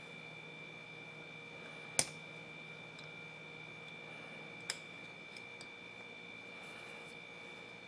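Metal tweezers clicking against small parts on the gear shafts inside an electric drill's metal gearbox housing: one sharp click about two seconds in, a softer one a little before the middle, then two faint ticks, over a steady high-pitched hum.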